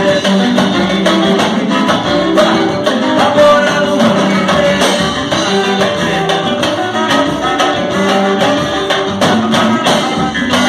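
Live band playing up-tempo Latin music with a steady beat: drum kit, hand percussion, guitars and bass.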